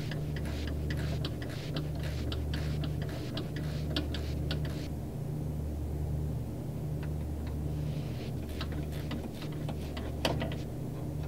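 Ratcheting wrench clicking in quick runs as it loosens the lower control arm bushing bracket bolt, over a steady low hum. The clicking stops for a couple of seconds midway, then starts again, with one sharper click near the end.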